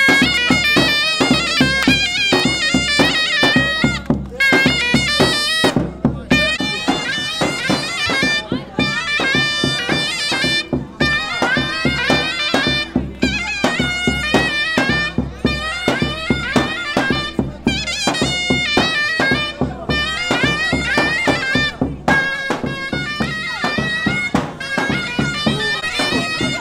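Zurna, a shrill double-reed folk oboe, playing a folk melody with quick note changes over a steady drumbeat.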